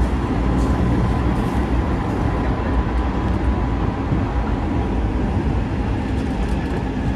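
Hanshin 9000 series electric train running, heard from inside the passenger car: a steady deep rumble of the moving train. A faint steady whine sits over it in the first half.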